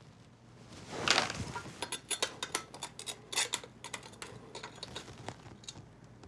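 Pencils drummed on a desk and the things on it: quick, irregular light taps and ticks, after a soft whoosh about a second in. Near the end the taps turn to clicks and knocks as a brass banker's desk lamp is handled.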